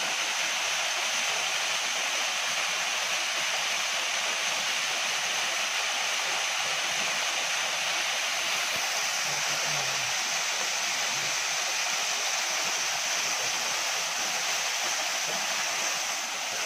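Small waterfall running with a light dry-season flow, splashing steadily down a rock face into a shallow pool: an even, unbroken rush of falling water.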